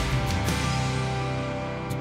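Background music: a guitar-led instrumental track with sustained chords and occasional strummed accents.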